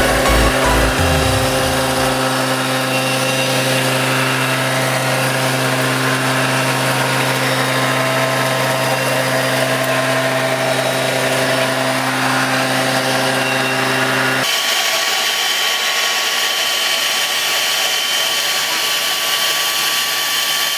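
Hammer mill running and grinding grain: a steady machine hum under a whirring rush. About two-thirds of the way through, the low hum drops out abruptly while the rush carries on.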